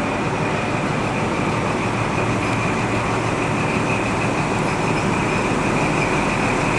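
InterCity 125 HST running slowly past, its coaches and then its Class 43 diesel power car going by with a steady rumble. A high steady whine grows stronger about four seconds in as the power car comes closer.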